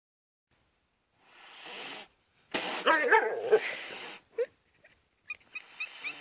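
A cat giving a loud, harsh, bark-like call lasting about a second and a half, preceded by a short breathy rush of noise. A string of short high chirps follows near the end.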